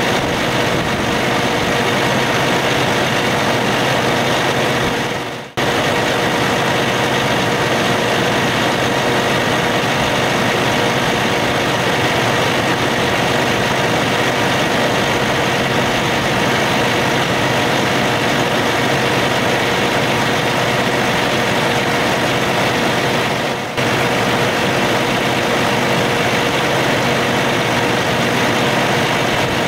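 Cummins ISX15 inline-six diesel truck engine idling steadily, heard close to the engine, with a steady hum. The sound dips briefly twice, once about five seconds in and again near the end.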